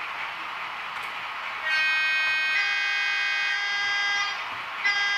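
Horn of a sound-equipped model DB V200 diesel locomotive, played by its sound decoder through the model's small loudspeaker. It gives two blasts: a long one starting about a second and a half in, which grows fuller as a second tone joins, and a shorter one near the end. A steady hiss of running noise lies underneath.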